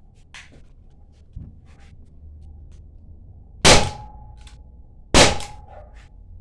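Two shots from a W119 CO2 Glock-replica air pistol, about a second and a half apart, each a sharp crack followed by a steady ringing tone that lingers for about a second.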